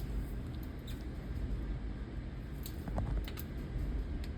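Scattered small clicks and taps of metal vacuum parts and multimeter probes being handled and set down, over a low steady room rumble.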